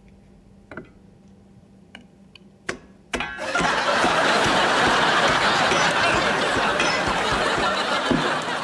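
Sitcom laugh track: a recorded studio audience bursts into loud laughter about three seconds in and keeps laughing for about five seconds, after a few faint clicks.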